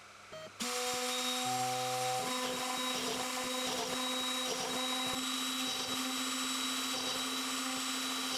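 X-Carve CNC router's spindle running steadily with a constant pitched hum as a small bit drills an alignment hole through a Tassie oak board. It starts suddenly just after the beginning, adds a brief extra tone about a second and a half in, and cuts off sharply at the end.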